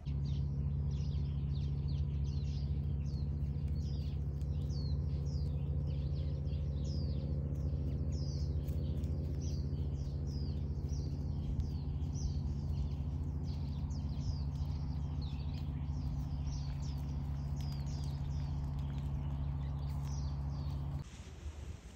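Birds chirping over and over in short falling calls, about two a second, over a steady low hum. Both stop suddenly near the end.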